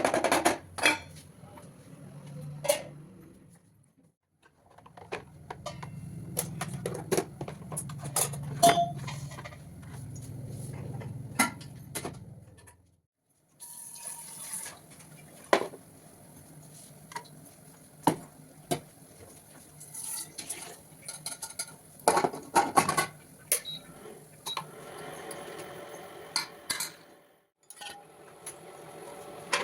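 Kitchen cooking sounds: metal utensils and pots clinking and knocking, over a low steady hum, broken by two brief silences.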